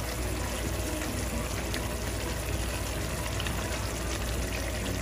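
Tomato-and-yogurt curry gravy boiling in a pan: a steady bubbling hiss with small pops now and then.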